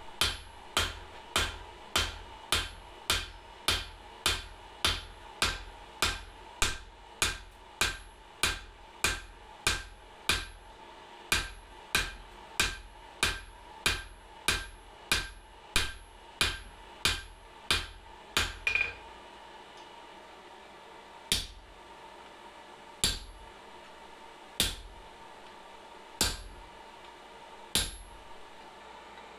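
Blacksmith's hand hammer striking hot leaf-spring steel on an anvil, drawing it out: a steady run of blows about two a second, slowing to single blows spaced well over a second apart about two-thirds of the way through.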